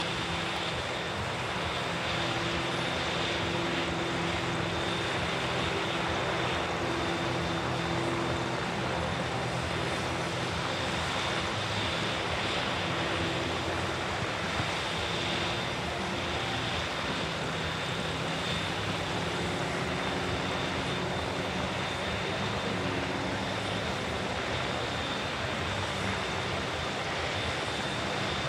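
Propeller engine of a GameBird GB1 aerobatic monoplane, a six-cylinder Lycoming, droning steadily as it flies aerobatic figures, with slight shifts in pitch.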